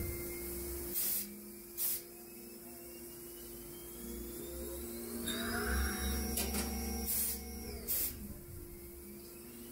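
Haas CL-1 CNC lathe cutting brass bar under flood coolant: a steady machine hum with the spindle's whine rising and falling in pitch as its speed changes through the cycle. Brief loud noises come twice near the start and twice about three-quarters of the way through.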